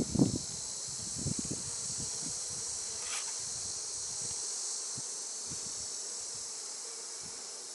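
Honey bees humming at the open hive, over a steady high-pitched chirring of crickets. There are a few low knocks from the hive frames being handled in the first second and a half.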